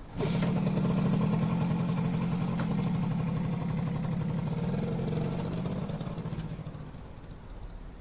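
A motorcycle engine starts abruptly and runs steadily with a low, pulsing drone, then fades away after about six seconds as the bike moves off.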